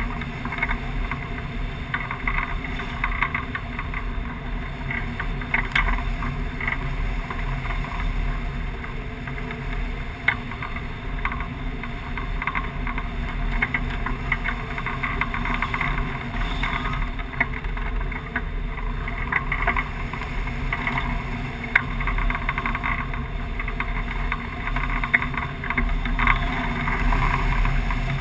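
Wind rushing over the microphone of a camera mounted on a hang glider's wing in flight: a steady roar of airflow with frequent short crackles of buffeting.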